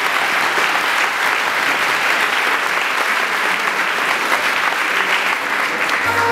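Audience applauding steadily with clapping hands. Music comes in near the end.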